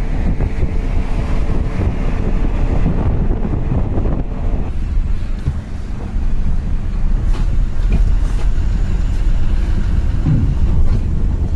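Bus engine and road rumble heard from inside a moving non-AC bus, with wind noise. The sound eases briefly about five seconds in, then comes back to full strength.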